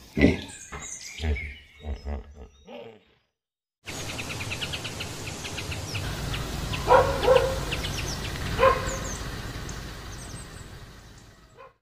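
A run of short animal calls that stops abruptly about three seconds in, then a second of silence. After that, outdoor ambience with small birds chirping and two louder short calls, about seven and nine seconds in.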